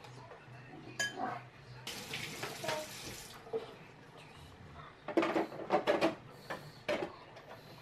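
Kitchen sounds: a tap runs briefly, then hard items clatter and knock together several times, like dishes being handled.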